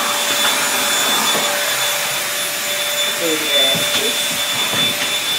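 Vacuum cleaner running steadily, a constant motor whine over a rushing noise, with a voice briefly heard about three seconds in.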